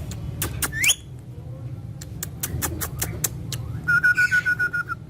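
Indian ringneck parrot calling: a short rising whistle about a second in, scattered sharp clicks, then a quick run of about ten even chirps on one pitch near the end, over a steady low hum.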